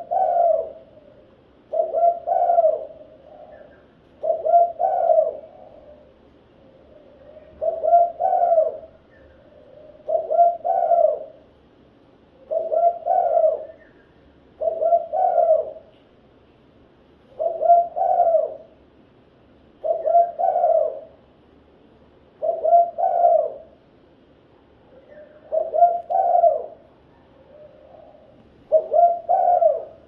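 Spotted dove cooing its song over and over: a short phrase of two or three low coos, repeated about every two and a half seconds.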